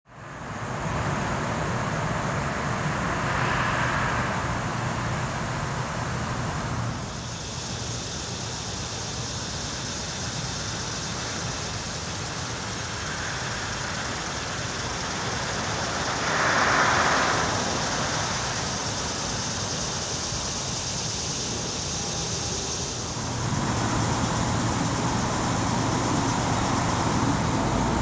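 Steady road traffic noise, with vehicles passing by twice, about 3 seconds in and again about 17 seconds in.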